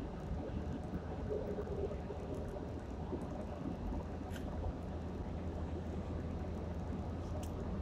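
Steady low road and engine rumble of a car driving at highway speed, heard from inside the cabin.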